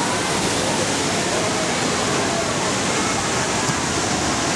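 Steady rushing of a waterfall: a loud, even wash of falling water, with faint voices in the background.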